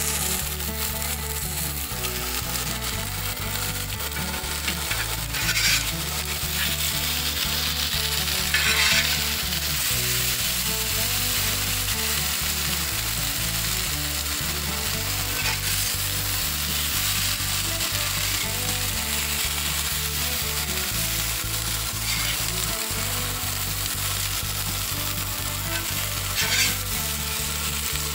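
Vegetables (asparagus, squash, mushrooms and potatoes) sizzling steadily on a hot Blackstone flat-top griddle, with a metal spatula scraping and turning them a few times.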